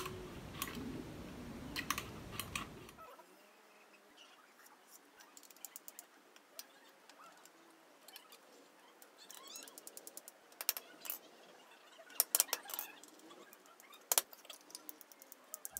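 Scattered sharp clicks and light knocks of hand tools and wooden pieces being handled on a tile floor. The taps come in clusters toward the middle and near the end, with the loudest click about two seconds before the end.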